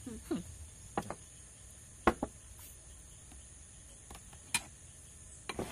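Cutlery clinking against plates now and then during a meal, a handful of separate sharp clicks. A steady high insect drone runs underneath.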